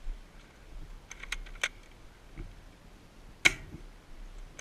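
Airsoft guns firing single shots as sharp clicks: a quick run of three about a second in, then a single louder one past the middle.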